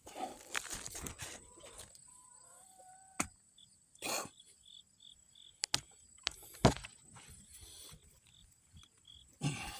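Digging out sweet potatoes by hand: rustling and scraping in loose soil with a few sharp knocks, the loudest about two thirds of the way through. An insect chirps at an even pace from about a third of the way in, and a short bird whistle sounds just before it.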